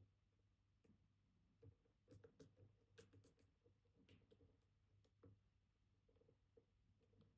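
Faint, scattered clicks and ticks of a dimple pick probing the pins of a Kaba Titan Combi high-security dimple lock held under tension, most of them in the middle of the stretch.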